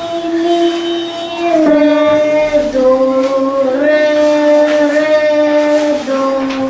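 A child sight-singing a solfeggio exercise unaccompanied: a slow melody of long held notes that move by small steps, mostly downward, with one step back up midway.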